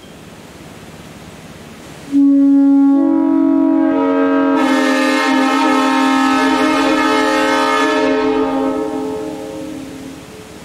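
A fully restored Nathan AirChime M3 three-chime locomotive horn sounding one long blast on compressed air, after about two seconds of steady hiss. The bells speak one after another, the lowest first, building to the full chord and then fading away near the end.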